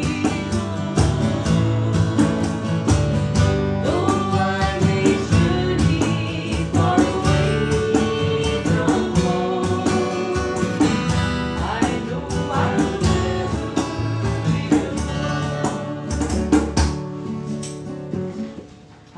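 Acoustic string band of guitar and mandolins playing a country-bluegrass song, with a singing voice. The picking stops about seventeen seconds in, and the last chord dies away.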